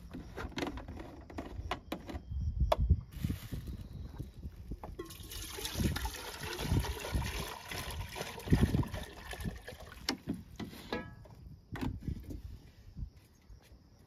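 Water poured from a plastic jerrycan into a metal pot, splashing steadily for about six seconds from about five seconds in. Clicks and knocks come before and after the pour.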